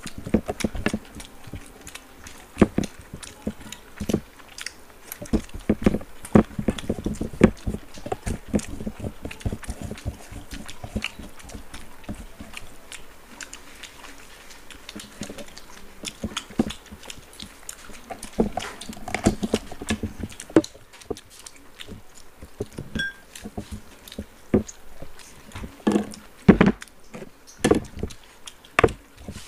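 Two people eating rice and curry with their hands close to a table microphone: chewing and lip-smacking in many quick, irregular clicks, with fingers mixing food on the plates.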